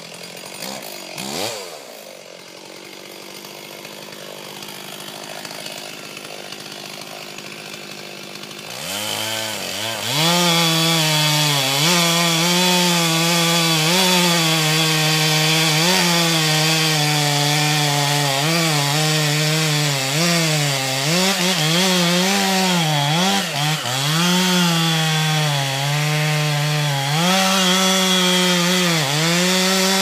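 Chainsaw cutting into the trunk of a large Douglas fir: it runs low and quieter at first, with a brief rev, then from about nine seconds in runs at full throttle, its pitch dipping and recovering as the chain bites into the wood.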